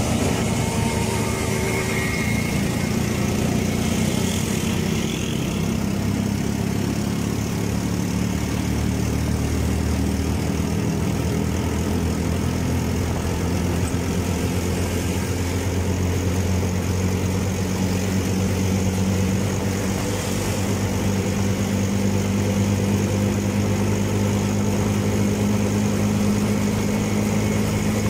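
Motorcycle engine running steadily at cruising speed, with road and passing-traffic noise.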